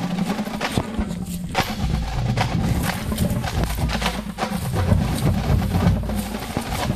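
Drums of a fife and drum corps beating a march, the snare and bass drums heard on their own.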